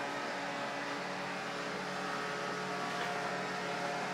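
Steady mechanical hum with several unchanging tones over a soft hiss: the room's background hum.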